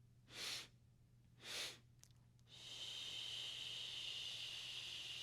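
Two short sipping inhales through the mouth, then from about two and a half seconds in a long, steady exhaled "shh": the liver sound of the Six Healing Sounds qigong practice.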